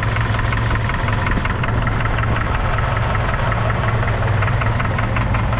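Chevrolet Opala Comodoro's four-cylinder engine running with a regular knocking tap through it, a "toque, toque, toque" that makes it sound like a diesel. The knock is an internal engine noise whose cause has not yet been found; it appeared after the engine had been in use for some time.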